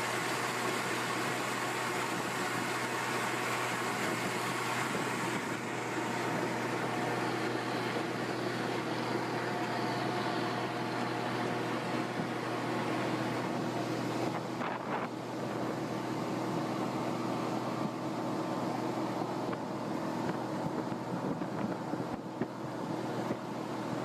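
A machine running steadily: a dense, continuous hum made of several steady tones over a noisy wash.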